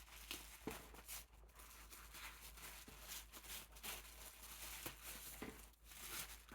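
Faint rustling of paper and packaging being handled, in short scattered bursts.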